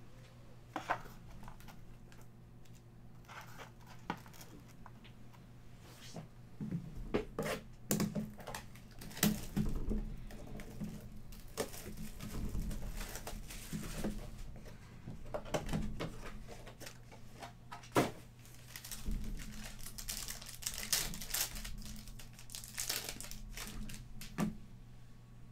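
Clear plastic wrapping being crinkled and torn off a trading-card pack, in irregular crackling bursts that are busiest through the middle, followed by cards being handled. A faint steady low hum lies under it.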